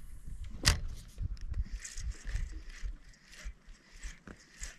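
A spinning reel being cranked to retrieve a cast lure: short whirring clicks several times a second. Wind rumbles on the microphone throughout, and there is one sharp splash-like hit under a second in as the lure lands on the water.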